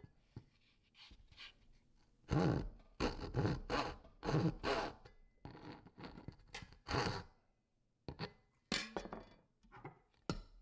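Small hand saw cutting into thin plywood in short, uneven strokes, about a dozen over the last eight seconds, after a quiet start.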